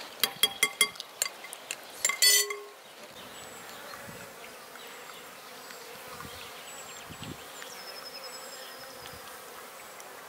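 A quick run of clinks against a glass mixing bowl, then one louder ringing knock about two seconds in. After that comes a faint steady hum of honeybees.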